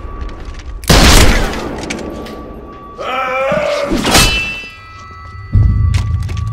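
Film fight-scene sound effects: a loud pump-action shotgun blast about a second in, a rising, wavering pitched sound around the middle, and a heavy low thud near the end.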